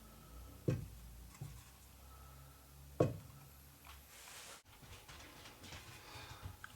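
Two dull knocks about two and a half seconds apart, with a fainter one between them, over a low steady hum; the hum cuts off abruptly a little past the middle.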